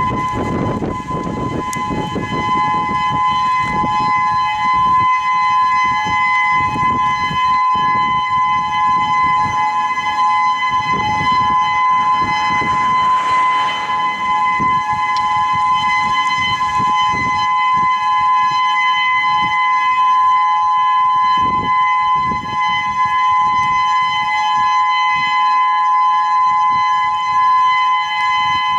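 Whelen 2016 electronic outdoor warning siren sounding its steady alert tone: two close, unwavering pitches held without rising or falling, during a monthly test.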